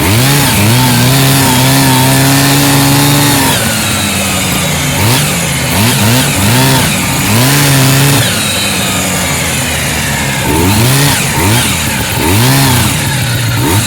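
1970 Arctic Cat Panther snowmobile's two-stroke engine revving under way: held high for the first few seconds, then dropping and rising again in a series of short throttle blips.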